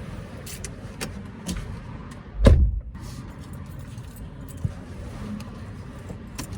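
Keys jangling and light clicking handling noises, with one dull thud about two and a half seconds in.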